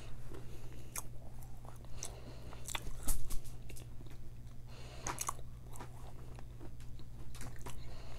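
Close-miked chewing of crunchy baked Mexican clay pot pieces: irregular sharp crunches as the clay breaks between the teeth, the loudest bite a little after three seconds.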